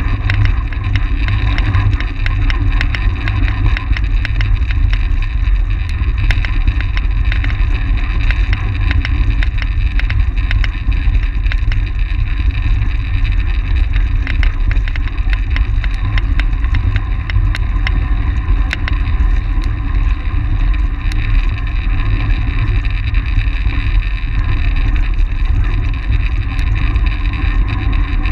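Wind rushing over the microphone of a camera on a track bike ridden at race speed, a heavy, steady low rumble. Under it run the hum of the bike's tyres and drivetrain and scattered light ticks.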